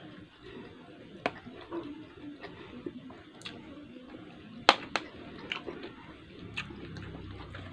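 Close-up wet mouth sounds of someone eating with her hands: chewing with scattered lip smacks and clicks. The loudest smack comes a little past halfway, with a second one right after it.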